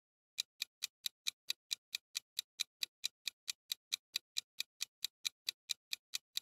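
Countdown-timer clock-tick sound effect: rapid, evenly spaced ticks, about four or five a second, starting about half a second in, marking the time left to answer a quiz question.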